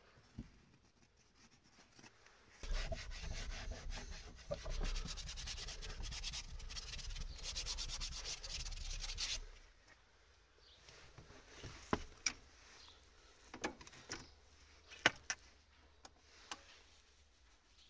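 A hand rubbing frost off the inside of a frozen tractor-cab window, a dense scratchy rubbing for about seven seconds. It is followed by a few light clicks and knocks.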